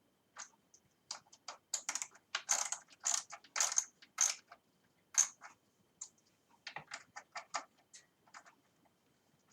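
Hand ratchet clicking in short, irregular runs as the bicycle stem's bolts are tightened snug.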